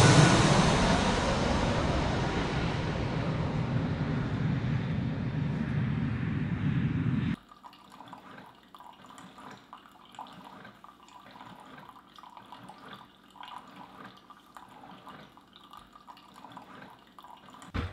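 Four-engine jet airliner passing low overhead on landing approach, its engine roar fading away over several seconds and then cutting off suddenly. Only faint, scattered low sounds follow.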